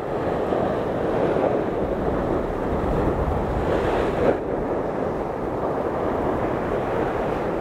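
Sea surf breaking and washing over a rocky shore, a steady rush of water, with wind buffeting the microphone. A wave breaks a little louder about four seconds in.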